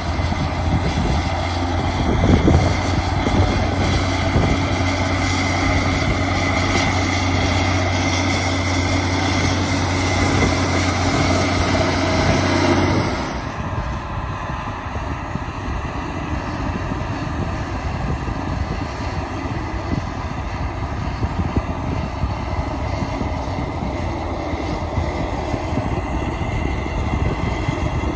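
Large diesel farm machinery running steadily, a deep hum with a high whine over it. About halfway through it changes abruptly to a quieter, rougher rumble.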